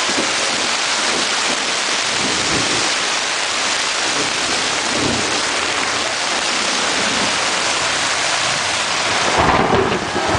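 Heavy rain pounding steadily on the tent fabric overhead. Low rumbles of thunder come through it, the loudest near the end.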